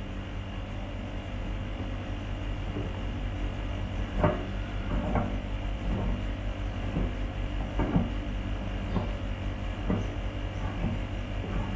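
A caster wheel being fitted into the end of a metal TV-stand leg tube: light knocks and clicks of plastic and metal parts, about eight in the later part, over a steady low hum.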